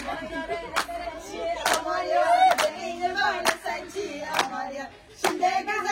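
Several voices singing a song, with steady hand claps keeping time about once a second. There is a short lull about five seconds in.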